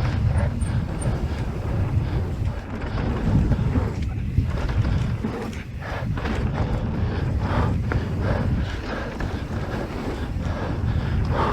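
Wind buffeting an action camera's microphone during a fast mountain bike descent on a dirt trail. It comes with a steady low rumble and many short knocks and rattles as the bike rides over the ground.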